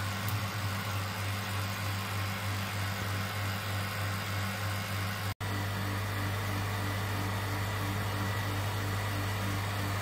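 Roughing vacuum pump running with a steady low hum while it pumps the vacuum system down toward 0.02 millibar.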